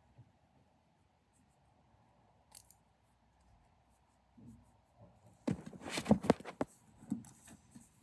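Close handling noise: quiet room tone with a faint click, then a quick run of sharp clicks and rustles a little over five seconds in, lasting about a second, with a few softer clicks after it.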